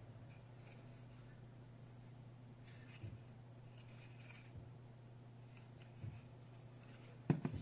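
Handling noise of a plastic bicycle alarm unit turned over in the hand: a few faint taps and knocks, then a couple of sharper clicks near the end, over a low steady hum.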